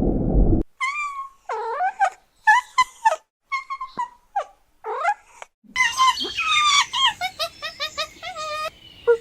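Animal calls: a series of short, high, whining calls that glide up and down in pitch, coming faster and overlapping from about six seconds in. Before that, a low rumbling noise cuts off just under a second in.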